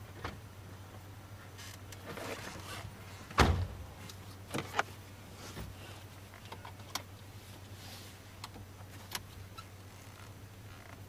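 A person climbs into a car's driver's seat, with some rustling, and the driver's door slams shut with one heavy thud about three and a half seconds in, heard from inside the cabin. A few light clicks and knocks follow over a steady low hum.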